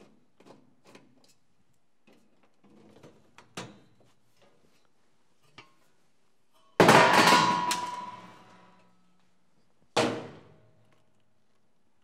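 Small clicks and rattles of a screwdriver and screws on the typewriter's casing, then about seven seconds in a loud metallic clang that rings on for a couple of seconds as a long metal part is put down on the metal workbench. A second, shorter clang follows about three seconds later.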